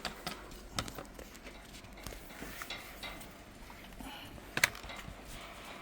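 Central Asian Shepherd dog (Alabai) sneezing once with a short, sharp burst about four and a half seconds in. A few softer clicks come before it.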